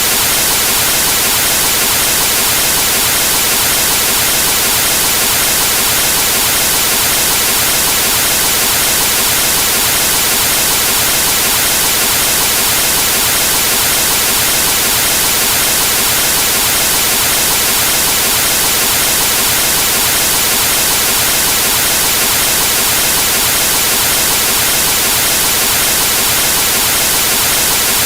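Television static: the steady, loud white-noise hiss of an analogue TV tuned to a dead channel, level and unbroken.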